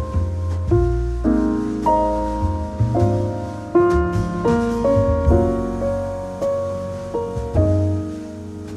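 Background piano music: a gentle melody of struck notes over a steady bass line.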